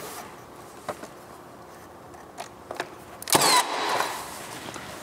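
Milwaukee M18 Fuel cordless finish nailer firing a finish nail into a small wooden support block: one loud shot about three seconds in, with a short mechanical whir falling in pitch. A few faint handling clicks come before it.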